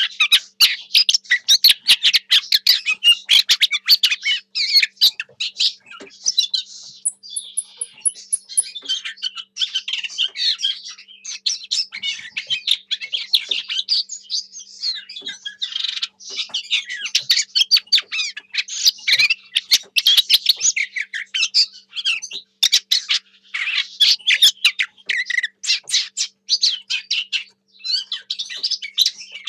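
Lesser whitethroat singing: a long, fast run of chattering, warbling notes. About seven seconds in comes a short string of very high, thin notes, and the song thins out briefly around the middle.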